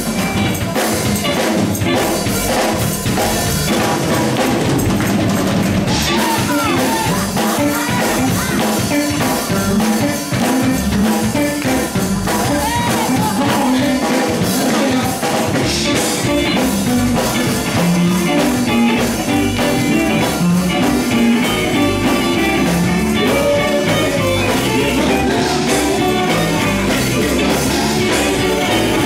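Live gospel group performing with electric guitar, drum kit and singing voices, loud and continuous.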